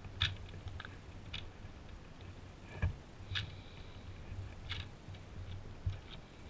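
A plastic 2x2 Rubik's cube (Cyclone Boys) being turned by hand: scattered clicks and clacks as its layers snap round, about one a second.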